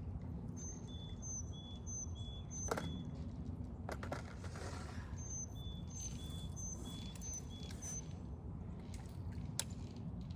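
A bird calling in runs of short, high chirps at two alternating pitches, over a steady low rumble, with a few sharp clicks.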